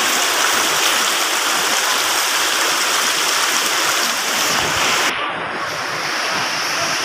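Shallow, fast river rushing over and around boulders: a steady, loud rush of water. About five seconds in, the highest part of the hiss drops away abruptly.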